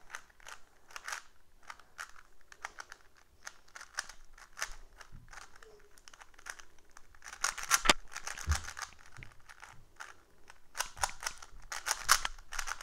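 A cheap Dollar Tree plastic Rubik's cube being turned by hand: quick irregular clicks and clacks of its layers twisting, with louder flurries about eight seconds in and near the end.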